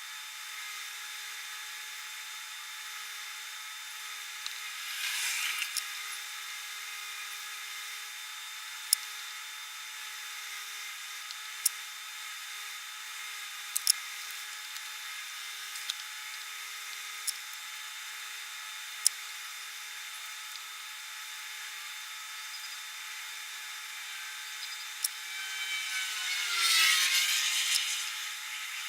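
Flush cutters snipping soldered component leads on a circuit board: about seven sharp single snips spread over ten seconds, over a steady faint electrical whine. Two longer rushing noises, one about five seconds in and a louder one near the end with a falling tone.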